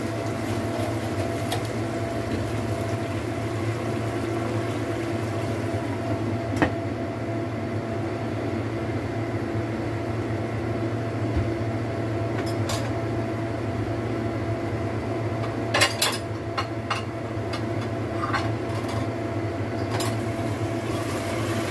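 Sardines in tomato sauce simmering in a wok under a glass lid, over a steady low hum. A few sharp clinks of the pot and lid, with a quick cluster about two-thirds of the way through.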